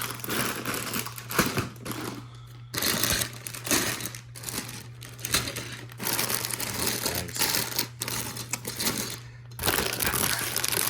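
Plastic bags of Lego pieces rustling and crinkling as they are handled and moved, with the small parts inside clicking and rattling, in irregular spells with two brief pauses.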